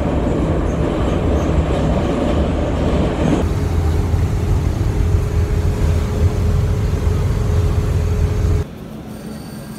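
Inside a moving passenger rail car: a loud, steady low rumble. About three seconds in it cuts to the inside of a bus, a steady rumble with a thin, constant whine above it. Near the end it cuts to a much quieter background.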